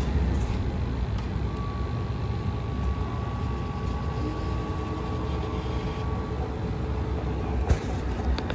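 American Standard gas furnace running steadily on second-stage heat, burner and blower giving a low, even rumble. A faint thin whine sounds for a few seconds in the middle.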